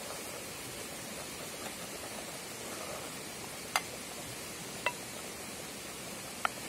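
A metal ladle clinks three times against a steel bowl and the rim of a stone dizi pot while broth is ladled out: short, bright clinks that ring briefly. Underneath is a steady rushing hiss.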